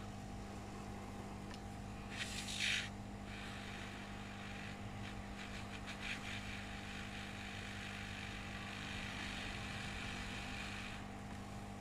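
Steady electrical hum and background noise at a soldering bench, with one short hiss about two and a half seconds in and a few faint clicks.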